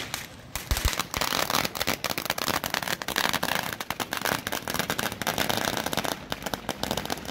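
Fireworks on a golf cart crackling with rapid, dense sharp pops and spraying sparks. The popping dips briefly about half a second in, then runs on thick and fast.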